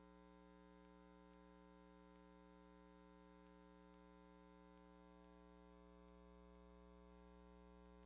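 Near silence: a faint, steady electrical hum made of several even tones, with light hiss, from the sound system's line.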